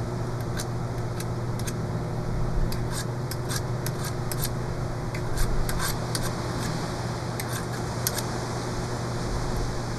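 Knife whittling a hardwood arrow foreshaft: short, irregular scraping cuts of the blade shaving wood from one side to straighten a crooked spot. A steady low hum runs underneath.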